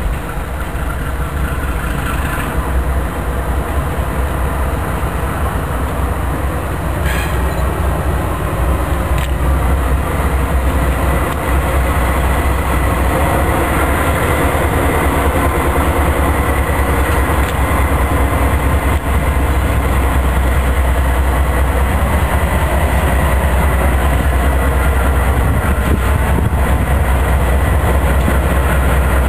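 Freight train's lash-up of diesel locomotives (BNSF, ex-Santa Fe and Soo Line units) passing on an overpass, engines running with a heavy low rumble and wheels clicking on the rails. It grows louder over the first ten seconds or so as the train arrives, then holds steady as unit after unit goes by.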